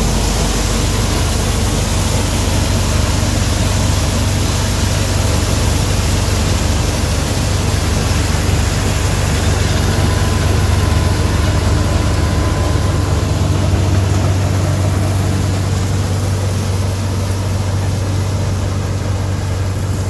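Punni self-propelled combine harvester working through a soybean crop: a loud, steady engine drone with the broad noise of the cutter and threshing machinery, a little fainter near the end as the machine draws ahead.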